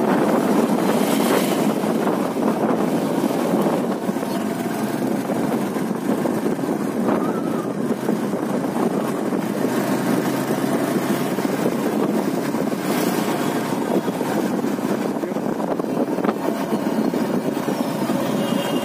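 Motorcycle running steadily on the move, with wind rushing over the microphone.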